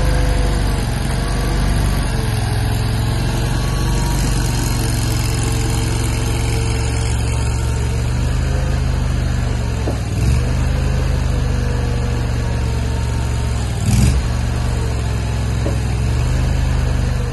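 Micro skid steer loader's engine running steadily, its pitch wavering slightly, with two sharp knocks about ten and fourteen seconds in.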